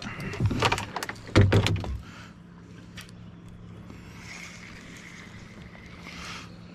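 A few sharp knocks and splashes at a fishing kayak in the first two seconds, just after a bass is let go, then a steady low hum.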